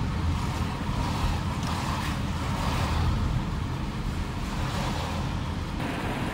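Car driving slowly along a snow-covered street, a steady low rumble of road noise heard inside the cabin; the noise changes slightly near the end.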